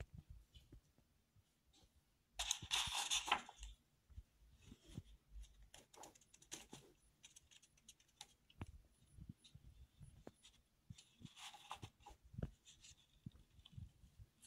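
Sketchbook paper rustling as the book is held and handled, with a louder rustle about two and a half seconds in and another near eleven seconds, and small taps and clicks of handling between them.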